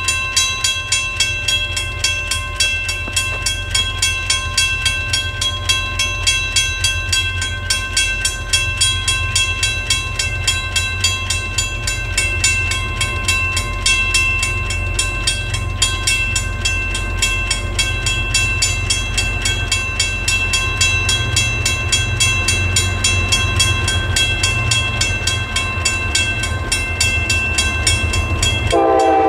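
Western-Cullen-Hayes mechanical crossing bell ringing at a steady two to three strokes a second, warning of an approaching train. A low rumble runs underneath and grows a little louder in the second half.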